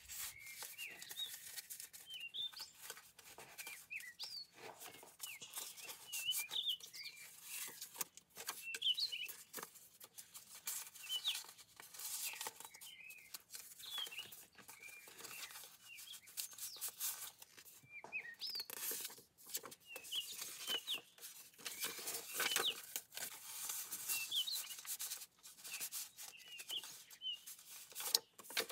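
Paper rustling and crinkling in short bursts as the pages and tucked cards of a paper junk journal are handled, with small birds chirping over and over in the background.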